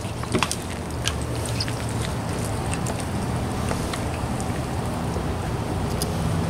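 Steady low rumble, with scattered small clicks and wet taps of a thin knife cutting strips of meat from a sea cucumber laid on a plastic cooler lid.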